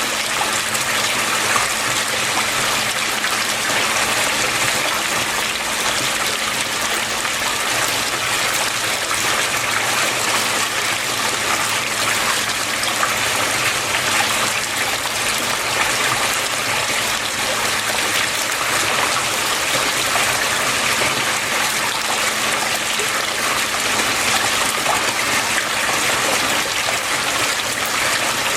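Water flowing and splashing steadily, an even rushing that does not change, with a faint low hum underneath.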